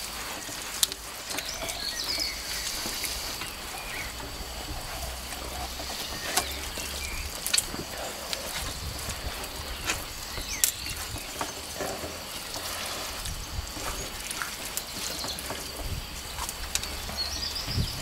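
Hands rubbing and squeezing spice paste into the skin of a raw whole chicken on a wooden board: irregular wet slaps, squelches and sharp little clicks.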